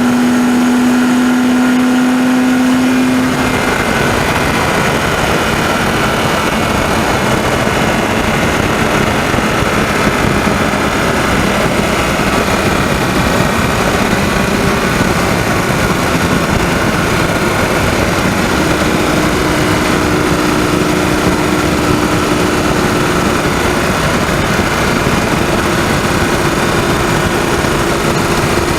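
BMW 130i's 3.0-litre straight-six running at road speed, recorded from the engine bay, with a rattling, ticking noise whose cause the owner does not know. A strong steady engine tone fills the first three seconds or so, then gives way to a rougher, noisier sound.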